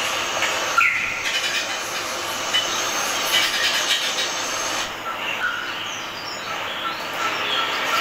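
Superb lyrebird singing in display: a dense, loud run of calls that thins to separate chirps about five seconds in.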